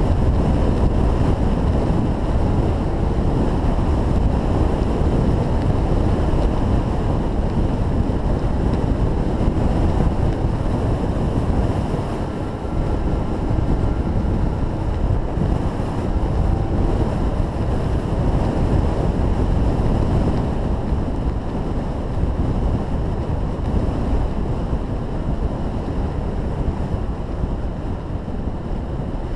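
Steady wind rushing over the microphone of a camera moving fast downhill, over a rolling rumble of wheels on asphalt.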